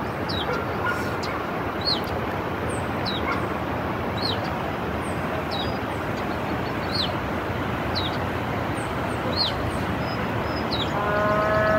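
Steady road noise of a car driving, with a short high falling chirp repeating about once a second. A pitched, drawn-out call or tone starts just before the end.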